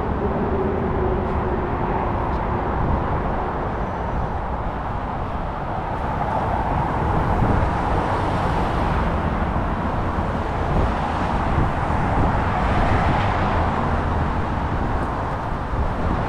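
Steady road traffic noise, swelling as vehicles pass about eight and thirteen seconds in.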